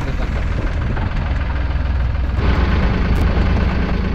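Boat engine idling with a steady low drone. About two and a half seconds in, water starts splashing and rushing as a hooked fish is hauled in by hand line thrashes at the side of the boat.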